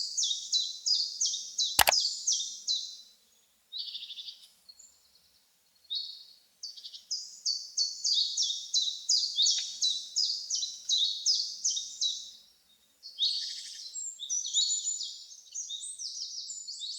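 A small bird chirping in fast runs of high, short notes that each slide downward, about five a second, in bouts of a few seconds with short breaks between them. A single sharp click sounds about two seconds in.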